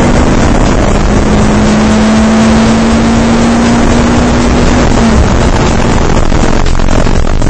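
Race car engine running hard on a straight, heard from inside the car, loud over a dense rush of wind and road noise. Its note climbs slowly for about five seconds, then changes.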